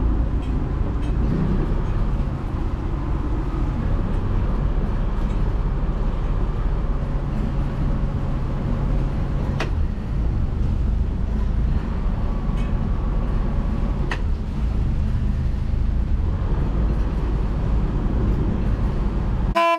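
Sailboat's inboard diesel engine running steadily while motoring, a continuous low rumble, with a couple of faint clicks partway through.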